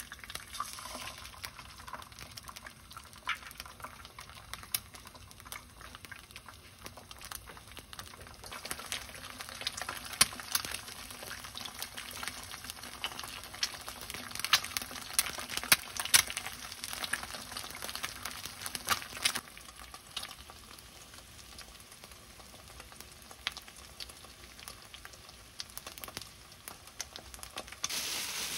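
Eggs frying in oil in a nonstick pan: a steady sizzle with sharp crackles and pops of spattering oil, the pops thinning out after about twenty seconds. Near the end, a brief rustle of plastic bags.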